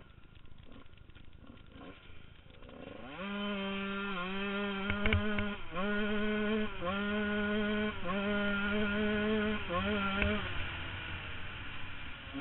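Husqvarna CR125 two-stroke dirt bike engine, low at first, revving up about three seconds in and then running hard at high revs. The pitch dips briefly several times before climbing back, and a few sharp knocks sound over it.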